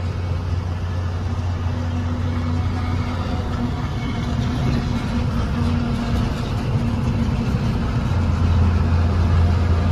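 Truck engine running steadily at highway speed, with tyre and road noise, heard inside the cab as a constant low drone that grows a little louder near the end.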